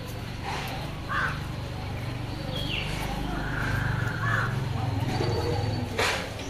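Crows cawing, with two short caws in the first second or so and other bird calls over a steady low hum. A sharp knock comes near the end.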